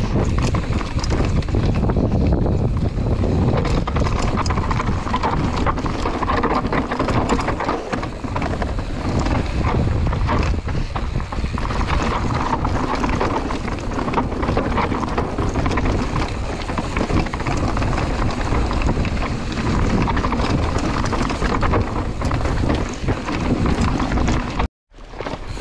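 Mountain bike riding down a rough stone and cobbled track: tyres rumbling and clattering over rocks, the bike rattling with many quick knocks, and wind buffeting the microphone. The sound cuts out for a moment near the end.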